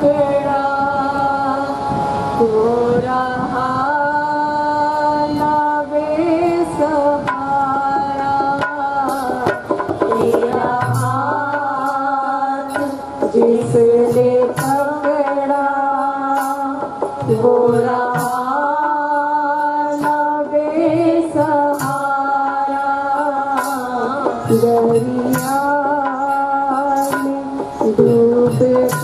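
Shabad kirtan: women singing a Sikh devotional hymn to harmonium accompaniment, the voices gliding between long held notes. Low drum strokes join in from about ten seconds in.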